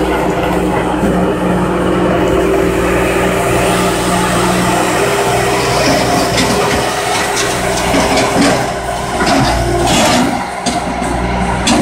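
Bobcat S300 skid-steer loader's diesel engine running with a steady drone. From about six seconds in, excavated driveway material tipped from its raised bucket clatters irregularly into the steel bed of a dump truck.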